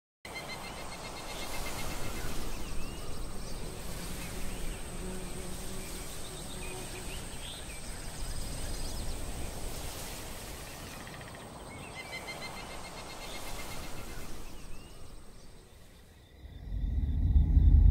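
Woodland night ambience: insects chirping in rapid trains over a steady high insect whine, with a few short bird chirps and a low background hiss. Near the end a deep, loud rumble swells in.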